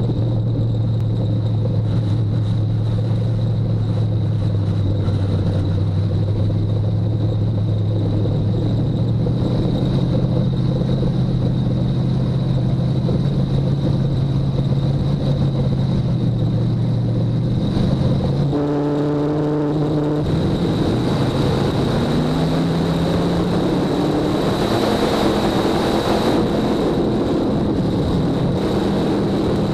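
Race car engine heard from inside the cockpit, running steadily at a low pace speed. About eighteen seconds in the throttle opens, and the engine note climbs in pitch over several seconds as the car accelerates to racing speed, then holds high.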